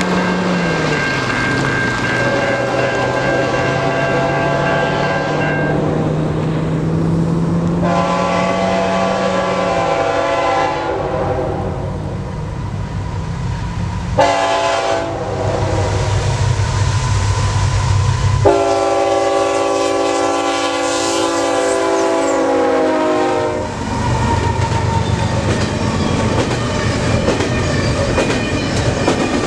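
An approaching diesel freight locomotive sounds its air horn in the grade-crossing pattern: two long blasts, a short one and a final long one, over the low running of the engine. Near the end the horn stops and the double-stack intermodal train runs past, its wheels clicking over the rail joints.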